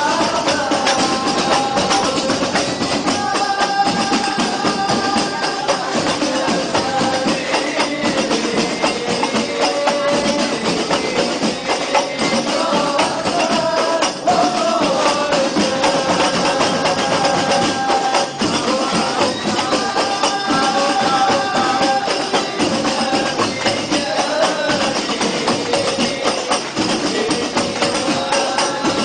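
Rebana frame drums with metal jingles on the rim, played together in a fast, steady rhythm, with a group of voices singing over them.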